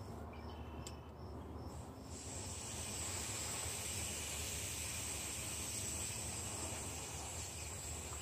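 Hand-pump garden pressure sprayer spraying water onto potting soil in a peat pot: a steady hiss that starts about two seconds in.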